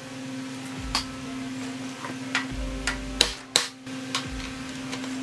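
Scattered sharp metal clicks and knocks as the rusty steering knuckle comes off a Dana 60 axle and is handled, with a steady low hum underneath.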